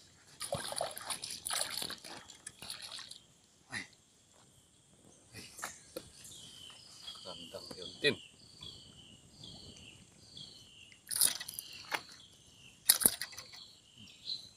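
Creek water splashing and sloshing as a hooked snakehead thrashes at the surface and is pulled to the bank, followed by scattered sharp clicks.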